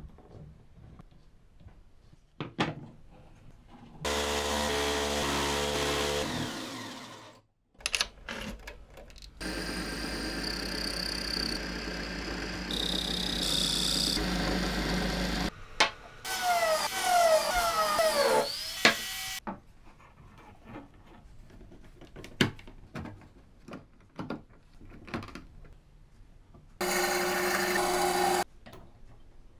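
Woodworking machine and hand-work sounds: light clicks and taps of small wooden parts being handled, a power tool running for about three seconds and winding down, then a wood lathe running for several seconds while a gouge cuts the spinning wood, with squeals falling in pitch. Near the end a band saw cuts through a wooden block for about a second and a half.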